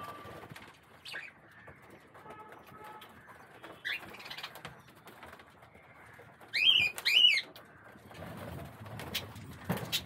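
Budgerigars calling: scattered short chirps, with two loud, sharp calls in quick succession about two-thirds of the way through.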